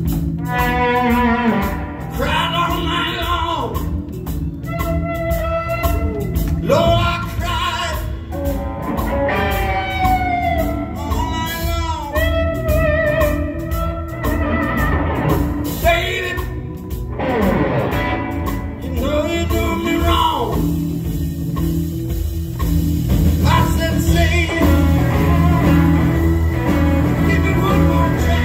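Live blues-rock band: a man singing over electric guitars, bass and drums. The singing stops about two-thirds of the way through and the band plays on, growing louder.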